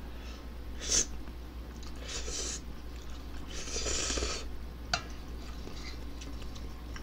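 A person slurping instant ramen noodles off a spoon: short slurps about one and two seconds in and a longer one around four seconds, then a light click near five seconds, over a low steady hum.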